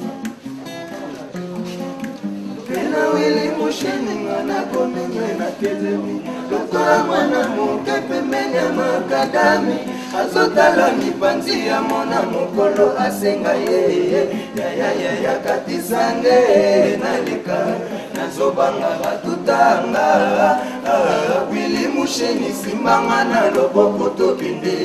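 Acoustic guitar playing, joined about three seconds in by men singing together over it.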